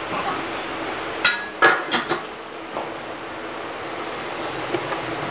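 Metal kitchenware clanking: two sharp, ringing clinks about a second and a half in, followed by a few lighter taps, over a steady background hiss.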